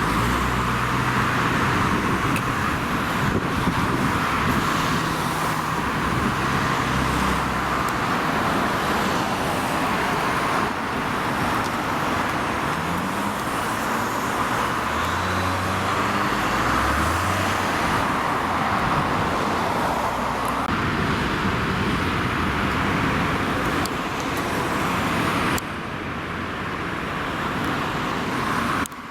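Steady outdoor road-traffic noise, with a vehicle engine's pitch sweeping up and down near the middle; the noise changes abruptly a few times where shots are cut together.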